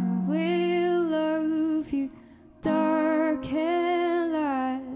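A woman singing two long wordless phrases, pitch arching and falling on each, with a short break between, over a classical guitar.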